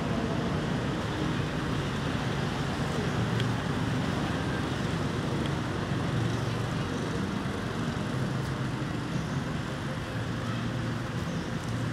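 Steady low background rumble with no distinct calls or events.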